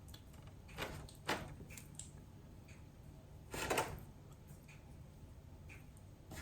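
Faint taps and clicks of chopsticks against a takeout container and plate while duck meat is picked up and laid on a crepe, with one slightly longer, louder scrape past the middle.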